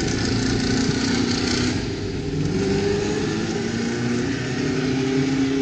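A racing car's engine running loud at high revs, its pitch slowly climbing twice as it pulls through the gears.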